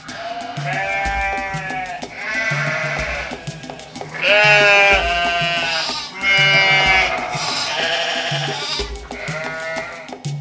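Animals bleating, about seven wavering calls one after another with the loudest about four seconds in, over background music with a steady low beat.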